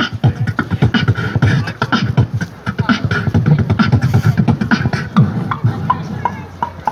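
A man beatboxing into a handheld microphone, amplified through a portable speaker: a fast, dense beat of deep kick sounds and sharp clicks, thinning to sparser clicks near the end.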